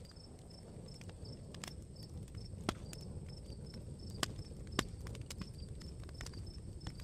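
Campfire crackling, a low rumble of flame with scattered sharp pops, a few louder ones near the middle, while crickets chirp in a steady, evenly spaced pulse.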